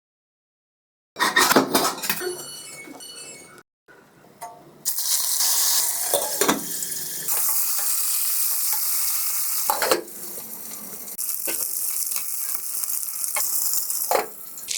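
Pots and utensils clatter, then from about five seconds in whole chicken fries in hot oil in a pan with a steady sizzle, punctuated by occasional knocks and scrapes of a spatula against the pan.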